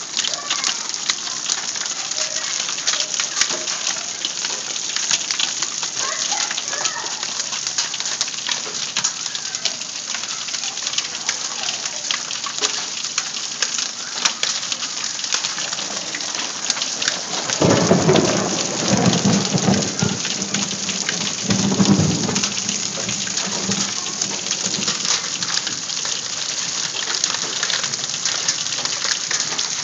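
Hailstorm: a dense, steady patter of hailstones striking a wooden deck and lawn, full of sharp ticks. Thunder rumbles about two-thirds of the way in, and again a few seconds later.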